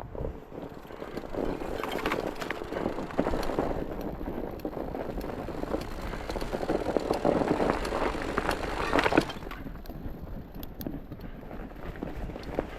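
Fat bike tyres fitted with chains rolling over snow and ice: a steady crunching noise full of small irregular clicks, with wind on the microphone.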